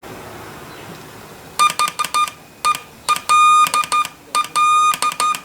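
Homemade Morse code practice oscillator giving a high, buzzy beep, keyed on and off in short dits and longer dahs from about one and a half seconds in.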